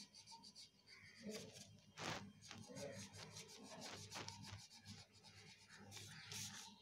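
Faint scratchy strokes of colouring on paper, with one louder stroke about two seconds in.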